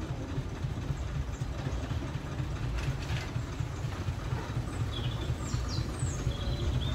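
Small narrow-gauge diesel locomotive running slowly as it approaches with its coaches, a steady low engine rumble.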